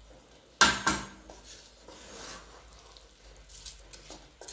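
Wooden spatula stirring uncooked rice and vegetables in a metal pot: two sharp knocks of the spatula against the pot a little after the start, then quieter scraping and rustling of the grains.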